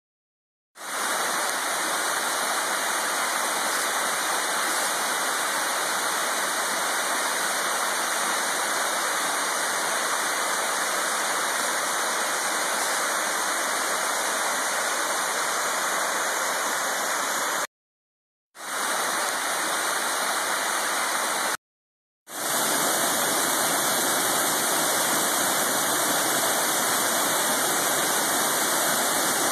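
Waterfall rushing steadily, coming in about a second in and cutting out twice for brief silences, near 18 and 22 seconds in.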